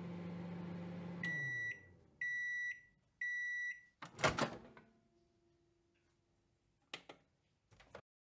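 Microwave oven running with a steady hum that stops, then three beeps about a second apart to mark the end of cooking, followed by a loud clunk of the door being opened and two soft clicks near the end.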